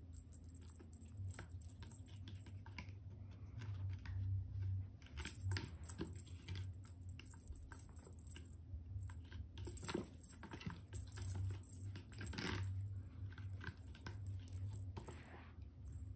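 A kitten's claws scratching and catching on the sisal rope of a scratching post and tapping at it, making faint irregular scrapes and clicks over a low steady hum.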